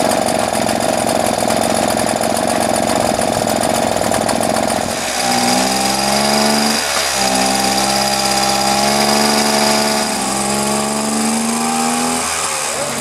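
Mobylette moped's small two-stroke single-cylinder engine running. The note changes about five seconds in, from a rough, noisy sound to a steadier, pitched hum, and dips briefly twice.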